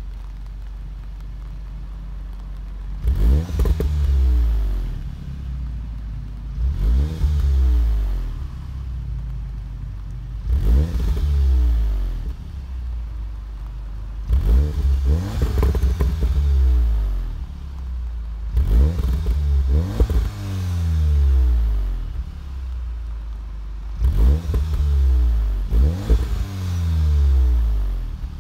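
Volkswagen Golf R's 2.0-litre turbocharged four-cylinder exhaust in Race mode, idling and then free-revved about eight times in quick blips, every three to four seconds. Each blip rises and falls in pitch, with crackles as the revs drop.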